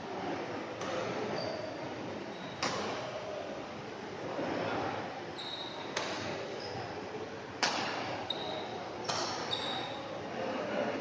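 Badminton rackets hitting a shuttlecock in a rally, five sharp hits one and a half to three seconds apart, with short high squeaks of shoes on the court floor between them over a steady murmur of spectators.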